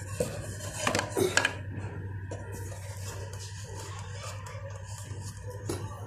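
Knocks and scrapes of handling against a wooden nest box and wire cage, loudest about a second in, over a steady low hum.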